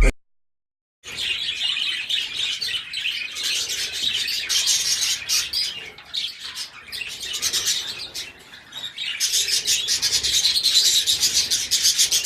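Small pet parrots chirping and chattering, a dense run of rapid, overlapping chirps from several birds, starting about a second in.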